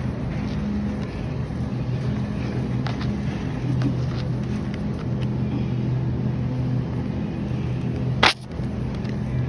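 Steady low hum of a supermarket refrigerated display case, with small clicks and rattles. One sharp, loud knock comes about eight seconds in.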